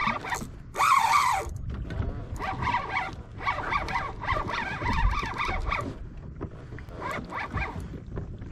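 Fishing reel being cranked to bring in a hooked fish: a scratchy whirring of reel and line that comes and goes, with a louder scratchy burst about a second in. A low wind rumble on the microphone runs underneath.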